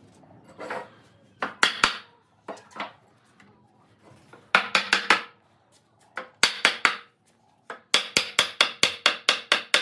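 Sharp knocks or taps in short bursts, ending in a fast run of about five a second.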